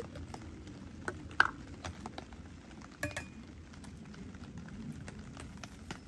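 Metal coffee gear handled on a wooden table: light taps and clinks, a sharp knock about one and a half seconds in, and a clink with a short metallic ring about three seconds in, as a hand-grinder catch cup and a stainless mesh pour-over filter are moved and set in place. Small scattered ticks run throughout.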